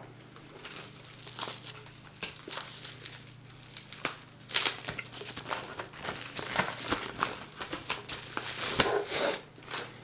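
Plastic packaging crinkling and rustling as a boxed desktop speaker is unwrapped, with irregular crackles that grow louder about four and a half seconds in and again near the end.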